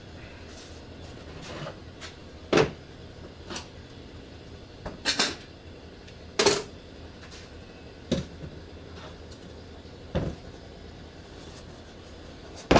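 Scattered knocks and clunks of objects being moved and set down, about half a dozen separate hits with quiet gaps between them.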